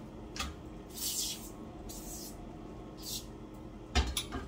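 Three short hisses of an aerosol degreaser can spraying, then a knock and a couple of light clicks near the end.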